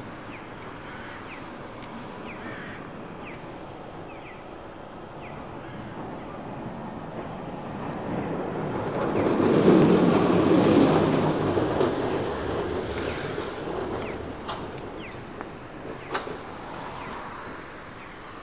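A city tram passing close by on its rails: it grows louder over several seconds, peaks about ten seconds in, then fades, over a steady traffic hum. Short falling chirps repeat about once a second in the first half, and there are a couple of sharp clicks as it moves away.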